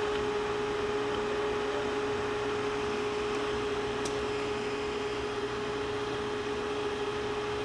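Rush Model 252S drill grinder running under automatic infeed: its grinding wheel and air-driven workhead turn with a steady hum and a steady mid-pitched tone, with one faint tick about four seconds in.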